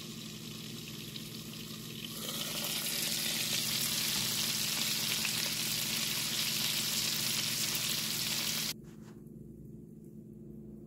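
Grouper fillets sizzling in lemon butter in a frying pan: muffled at first, then louder and brighter from about two seconds in, when the glass lid is off. The sizzle cuts off abruptly near the end.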